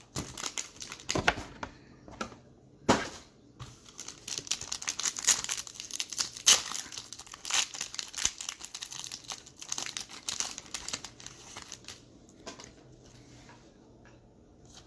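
Crinkling plastic and foil wrapping being torn open and handled, with sharp crackles and a few louder snaps: trading card box and pack wrappers being opened. The crackling is densest in the middle and thins out near the end.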